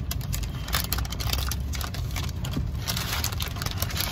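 Paper bag crinkling and rustling close up in irregular crackles, over a steady low rumble inside a car cabin.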